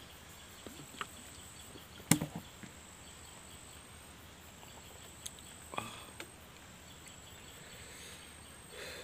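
A few sharp knocks of a plastic water bottle being handled and set down on a tabletop, the loudest about two seconds in and a smaller one near six seconds, over a faint steady high drone of insects.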